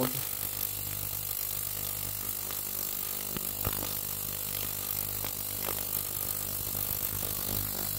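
Cheap ultrasonic cleaner running with a water-filled stainless tank: a steady low electrical buzz with a high hiss over it, and a few faint ticks.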